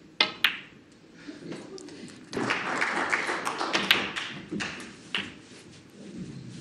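Snooker shots: the cue tip strikes the cue ball, and a quarter-second later the cue ball clicks into an object ball. More sharp ball clicks follow, with a couple of seconds of crowd noise in the middle.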